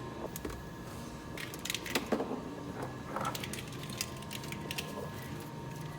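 Scattered clicks and light clatter of truck interior parts being handled and pried apart, over a steady low hum.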